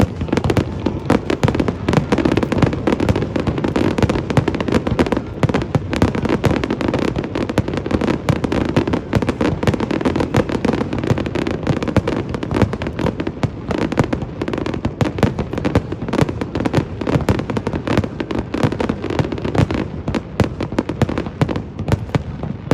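Fireworks display: a dense, continuous barrage of booms and crackling bursts, many a second.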